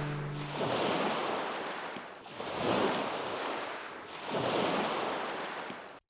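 Seawater washing against the shore in three swells, each rising and fading over about a second and a half, just after background music fades out.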